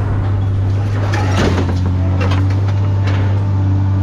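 Engine running steadily with a low hum, with a few metallic clanks and clatters about a second in, around two seconds and around three seconds.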